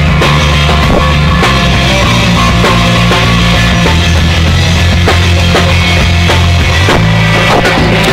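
Loud rock music with a steady drum beat and sustained bass notes, in a poor-quality recording.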